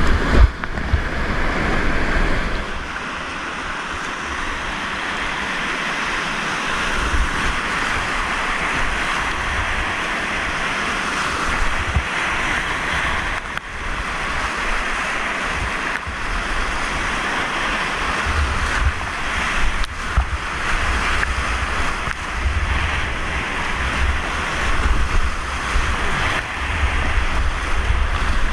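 Whitewater rapids rushing steadily around a kayak, with water splashing over the bow and wind buffeting the microphone in uneven low rumbles.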